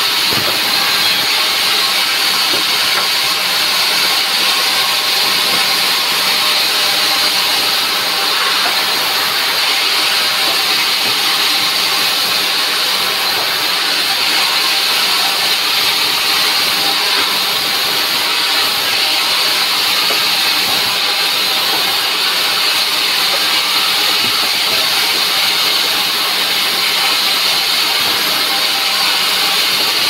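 Sawmill band saw running and cutting steadily through dry logs fed by hand: a loud, even hiss of the blade in the wood over a steady low machine hum.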